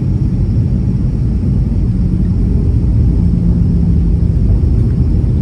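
Airliner cabin noise at a window seat during the descent to land: a steady low rumble of the engines and airflow, with a faint steady hum.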